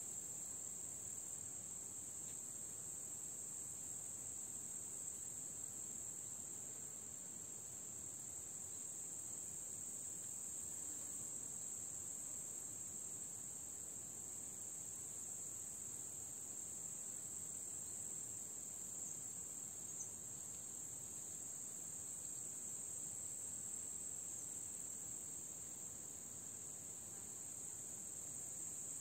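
Chorus of meadow insects stridulating: a steady, unbroken high-pitched buzz.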